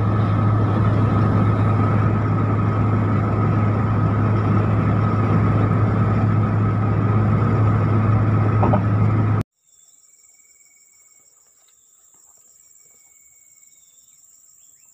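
Steady road and engine noise inside a car at highway speed, with a constant low hum. It cuts off abruptly about two-thirds of the way in and gives way to the faint, steady high-pitched chirring of insects, with a few short whistled calls.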